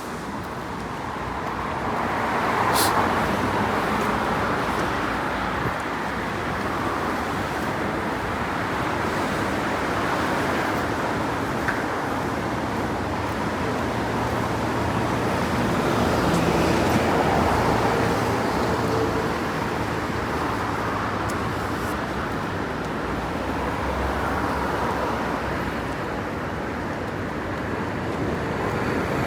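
Road traffic on a rain-wet street: vehicles passing, their tyre noise swelling and fading several times over a low engine hum.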